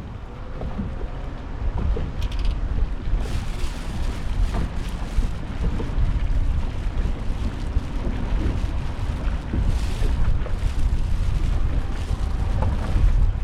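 Wind buffeting the microphone in a steady low rumble, with small knocks and slaps as waves rock a small fishing boat.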